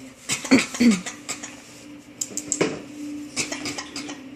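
A pet's fake coughing in three short fits, about a second in, near the middle and past three seconds, with light clinks mixed in.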